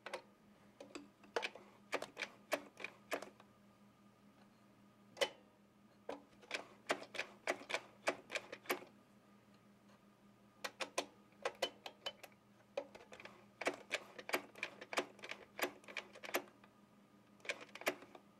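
Sewing machine mechanism giving sharp clicks in short irregular runs as the needle is worked through its positions, checking that it now clears the metal on all sides.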